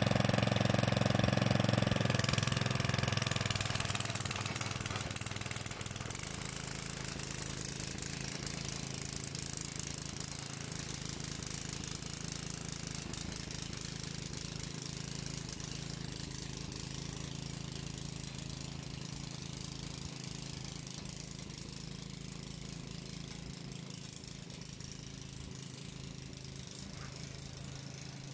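Small petrol engine of a 2.3 hp Loncin motor hoe running under load as its tiller tines work the soil between vine rows. The engine note is steady, loudest in the first couple of seconds and then fading as the machine moves away.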